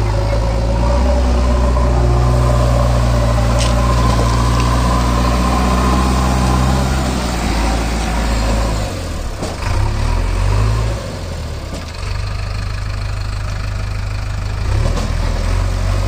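JCB 3DX Eco Expert backhoe loader's diesel engine running steadily. About halfway through its note drops and wavers for a few seconds, then it runs steady again.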